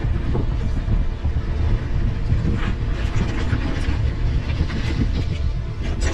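Mountain bike rolling fast downhill over a rough gravel road. Wind rumbles on the microphone under the hum of the tyres, with scattered crunches and rattles as the bike goes over the bumps.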